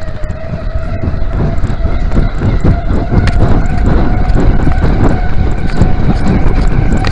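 Wind buffeting the microphone of a handlebar-mounted camera on a moving mountain bike, mixed with tyre rumble over a concrete path and small rattles from the bike. It grows louder about two seconds in.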